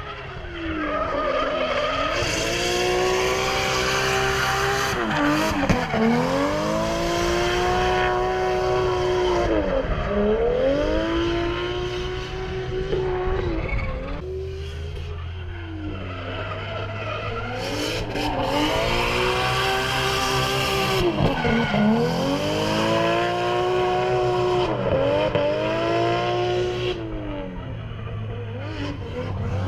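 Drift car sliding through a track's corners: its engine revs in long surges every few seconds, each climbing, holding near the top, then dropping sharply, with the tyres squealing through the slides.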